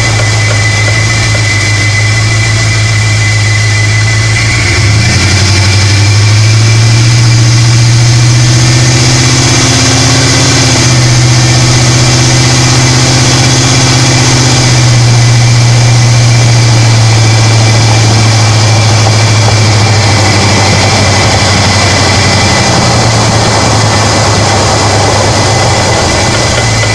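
Ford F-150 SVT Lightning pickup running: a steady low engine drone that rises about five seconds in and eases back a few seconds before the end, over a continuous noisy rush, with a faint steady high tone underneath.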